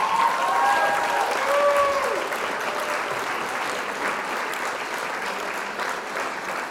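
Crowd applauding, with a few drawn-out calls or cheers over the clapping in the first two seconds; the applause slowly dies down.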